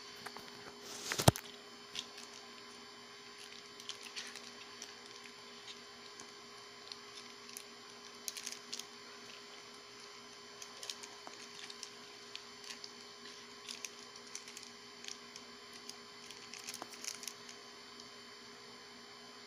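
Unboxing handling noise: scattered light clicks and rustles from a pair of sunglasses, their plastic tag and paper leaflets being handled, with one sharp knock about a second in. A steady faint hum sits underneath.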